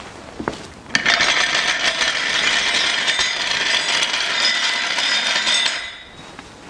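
Aerosol cleaner spray hissing steadily for about five seconds, washing oil off the underside of the transmission. It starts about a second in and cuts off sharply.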